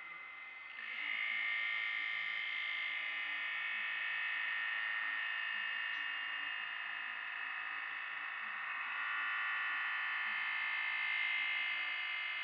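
Crystal whisky glass pressed against a spinning glass-cutting wheel, giving a steady high grinding whine. The whine grows louder about a second in, as the glass bears on the wheel.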